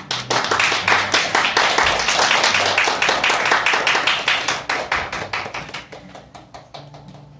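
Applause from a small audience, individual hand claps audible, starting abruptly and thinning out and fading toward the end.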